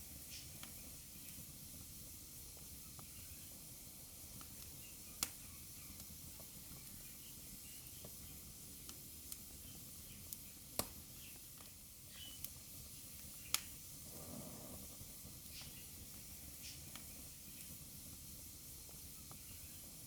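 Wood fire burning in a fireplace: a soft steady hiss with scattered crackles and a few sharp pops, the loudest about 5, 11 and 13.5 seconds in.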